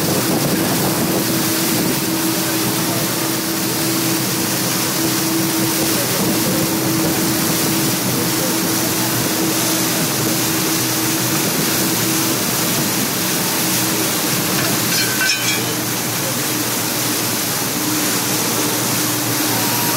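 Muddy floodwater rushing and splashing alongside a vehicle wading through a flooded street, over the steady hum of its engine.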